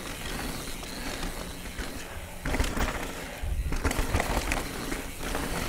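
Canyon Spectral 29 CF 9 mountain bike coasting down a dirt trail: the rear hub's freewheel pawls ticking rapidly over tyre noise on the dirt, with heavier rumbling and knocks over rough ground from about two and a half seconds in.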